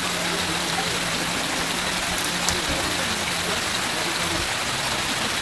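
Small fish frying in oil in a wok: a steady, even sizzle, with a single light click about two and a half seconds in.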